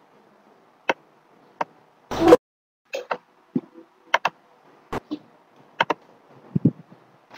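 Computer mouse and keyboard clicks picked up by a desk microphone: a dozen or so sharp separate clicks, several in quick pairs. About two seconds in there is a brief, louder burst of noise.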